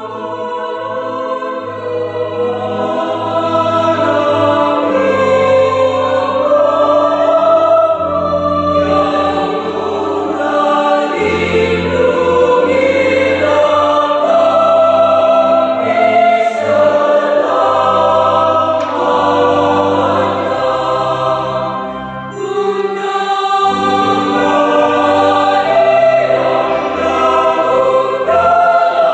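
Choir singing a Marian hymn in several voice parts, with held chords that change together. The sound dips briefly about three-quarters of the way through, then swells again.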